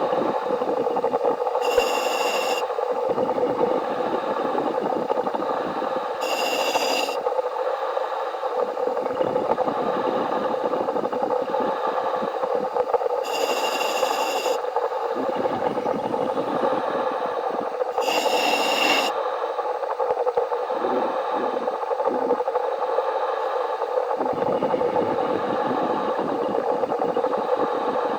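Underwater wet stick welding arc crackling steadily, heard through the diver's helmet communications, with the welding power switched on. Short bursts of hiss break in about every four to five seconds.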